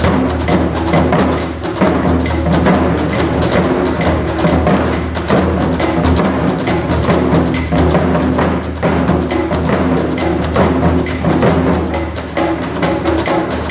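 Modern-style instrumental music built on taiko drumming, with dense, steady drum and wood-block-like strikes over sustained low bass tones, and no shouted calls.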